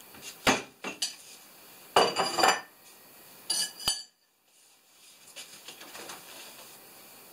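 Dishes and cookware clattering as a plate and pans are handled and set down: sharp clinks about half a second and a second in, a longer clatter with a brief metallic ring about two seconds in, and two more ringing clinks just before four seconds.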